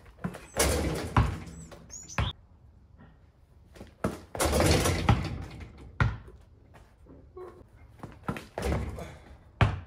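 Three dunks on a portable basketball hoop: each one sets off a rattle of rim and backboard lasting about a second, with sharp thuds of the ball and shoes landing on the concrete driveway in between. Birds chirp faintly near the start.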